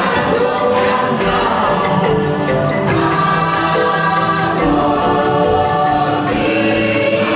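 Choir singing sustained, chant-like chords over music.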